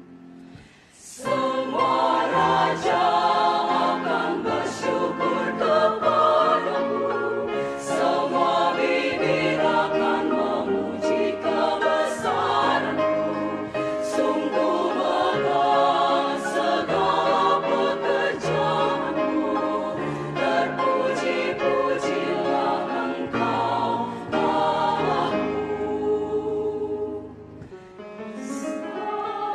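Women's choir singing in several parts. The voices come in together about a second in, and near the end they drop briefly before going on.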